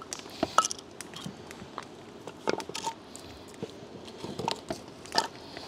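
Split firewood logs being laid on stones to build a fire: a few scattered, irregular wooden knocks and clatters.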